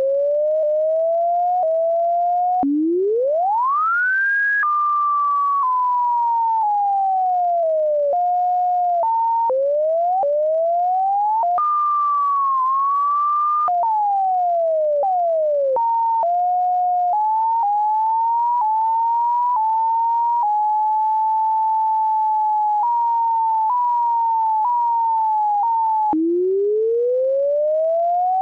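Computer-generated pure sine tone whose pitch rises and falls with the height of a graphed function, siren-like. It glides smoothly in places, steps between flat levels in others, and jumps abruptly. Near the start it drops suddenly and then sweeps up steeply, and near the end it drops again and climbs in a long rising glide.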